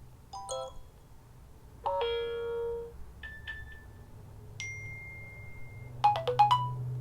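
New iOS 7 alert tones played back one after another: a string of short electronic chimes and blips. These include a chord, a held single beep of about a second, and a quick run of notes near the end.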